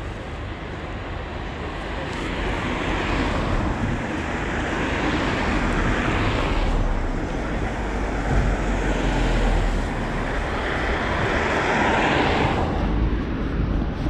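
Road traffic: three cars pass one after another, each swelling up and fading away.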